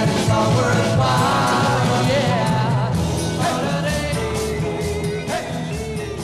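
A 1960s pop-rock song with singing and a steady beat, fading out over the last few seconds.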